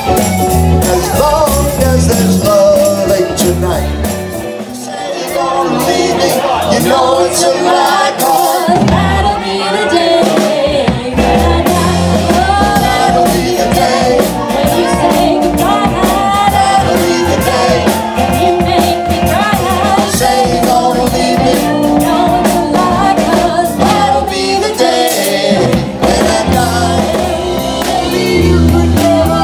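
Live band playing: a woman singing over electric guitars, drums and keyboard.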